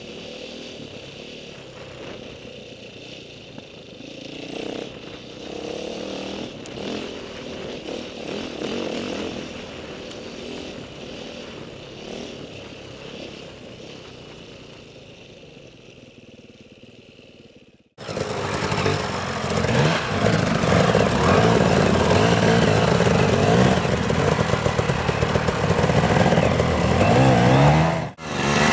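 Enduro motorcycle engine heard from the rider's own bike, fairly quiet and steady as it runs along a trail. About 18 s in it cuts suddenly to a much louder dirt bike close by, its two-stroke engine revving up and down hard as it struggles in deep mud, with exhaust smoke showing.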